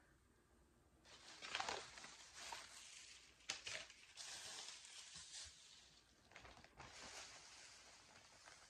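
Faint rustling and crinkling of a bag and the wrapped items inside it being rummaged through, starting about a second in, with a sharp click about three and a half seconds in.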